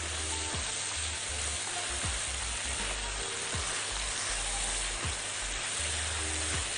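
Julienned vegetables sizzling steadily in a hot oiled wok while a silicone spatula stirs and turns them.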